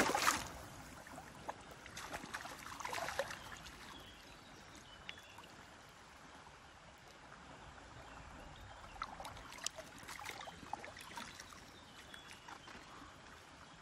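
Water splashing and sloshing as a keepnet full of barbel is worked in shallow river water, with a loud splash right at the start and smaller splashes and trickles about three seconds in and again around ten seconds.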